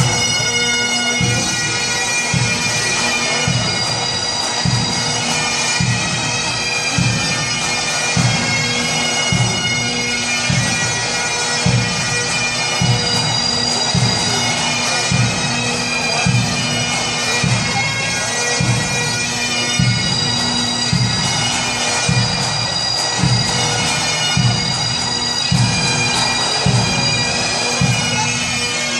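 Bagpipes playing a march over their steady drones, with a regular low beat about every three-quarters of a second.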